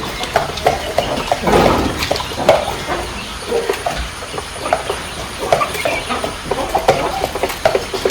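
Chickens making many short, scattered calls.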